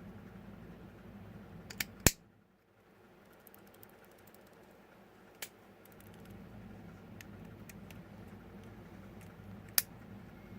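Sharp small plastic clicks and snaps as a router's power switch housing is fitted back together by hand, the loudest about two seconds in and a few more spread out after it, over a low steady hum.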